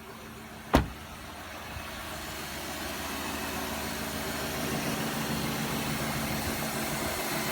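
2005 Cadillac DeVille's Northstar V8 idling steadily and growing gradually louder, after a single sharp click about a second in. It is running a little smoother after tinkering to cure a misfire, with a vacuum leak audible to the owner.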